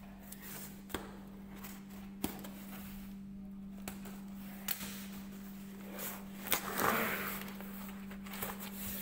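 Cardboard shipping box being unsealed and handled: scattered clicks and scrapes of fingers on the packing tape and cardboard, with a louder scraping rustle about two-thirds of the way in. A steady low hum runs underneath.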